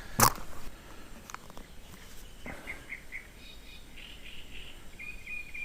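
Small birds singing in short runs of repeated chirps, with a single sharp knock just after the start, the loudest sound.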